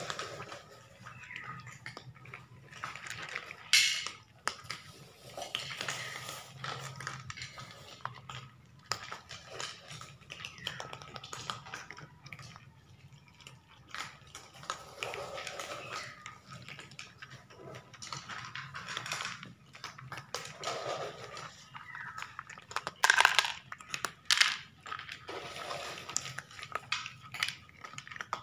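Cats eating dry snacks from plastic dishes on a hard floor: irregular crunching and small clicks of kibble and plastic being nosed about, with a few sharper clatters.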